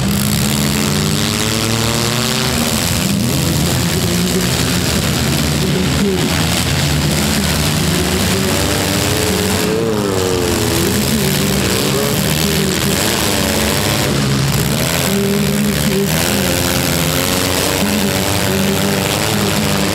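Several four-cylinder demolition derby cars' engines running and revving at once, their pitches rising and falling against one another as the cars push and spin their wheels.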